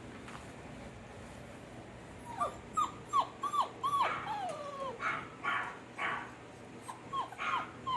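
Dog yipping and whining: a run of short, high yelps, each falling in pitch, starting about two seconds in, with a few rougher bark-like cries among them.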